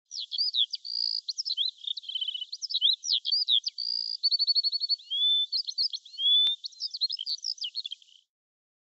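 Bird song: a quick, unbroken run of varied chirps, whistles and rapid trills, high-pitched. It cuts off abruptly about eight seconds in.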